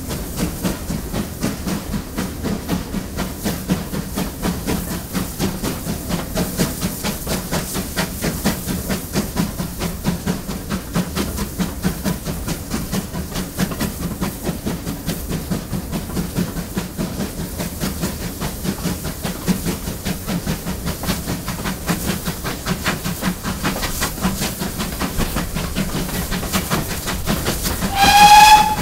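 GWR Collett Goods 0-6-0 steam locomotive No. 3205 running under way, with a steady rhythm of exhaust beats and a hiss of steam. Near the end comes a short blast on its whistle, the loudest sound.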